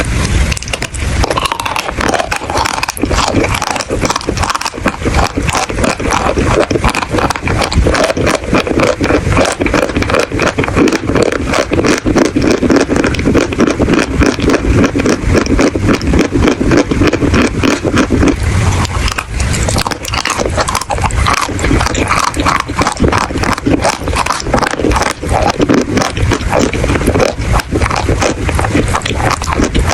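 Chalk being bitten and chewed: loud, dense, rapid crunching and crackling with no break.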